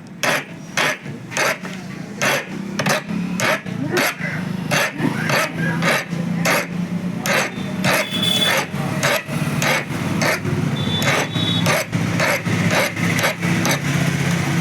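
Hand file rasping back and forth in steady strokes, about two to three a second, smoothing down a burr that hammering raised on a ceiling fan's metal part so that it will fit through its hole.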